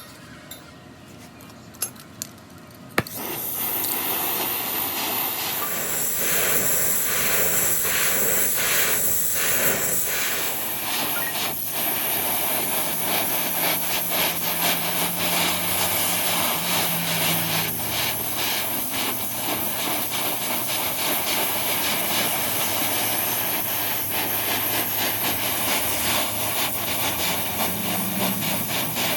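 A few light clicks, then from about three seconds in a loud, steady rasping noise of a power tool working metal, which continues unbroken.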